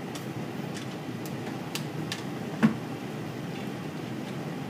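A few light clicks and one sharper knock about two and a half seconds in, from wire leads and connectors being handled and clipped on while a large demonstration galvanometer is wired into a circuit, over a steady low room hum.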